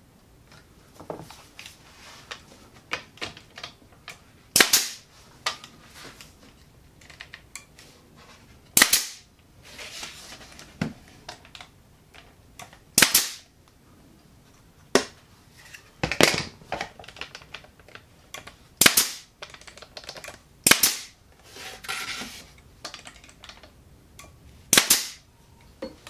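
Pneumatic brad nailer driving 1¼-inch galvanized brads into cedar picket boards. About seven sharp shots fall irregularly a few seconds apart, with lighter clicks and knocks between them.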